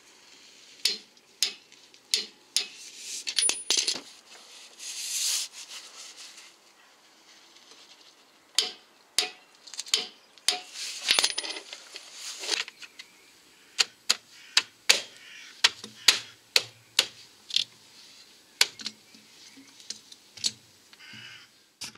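Sharp metallic clicks from a torque wrench and socket on the lower control arm's subframe mounting bolts as they are tightened to torque, coming irregularly and often in quick pairs, with a few brief rustles in between.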